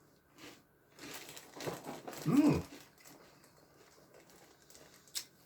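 Plastic cereal bag liner crinkling in a few short bursts about one to three seconds in, as the cereal bag is handled.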